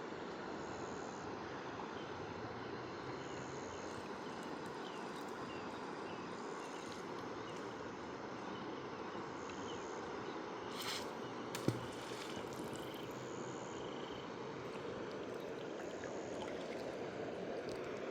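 Wild river water rushing steadily, with short high chirps repeating every couple of seconds and a single sharp click about twelve seconds in.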